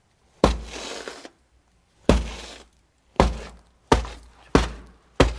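Foley elephant footsteps: six heavy thuds, each followed by a short crunching, rattling tail, falling closer together toward the end.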